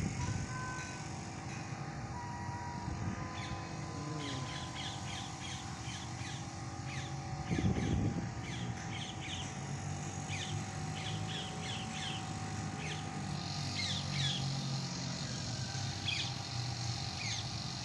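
Many birds chirping in short repeated calls over a steady low rumble. A brief loud rush of noise about eight seconds in.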